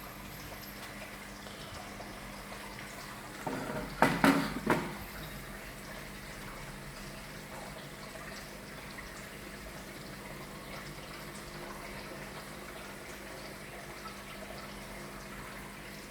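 Aquarium water running and splashing steadily, as from a filter outflow, under a faint steady hum. About four seconds in there is a short cluster of loud sharp knocks.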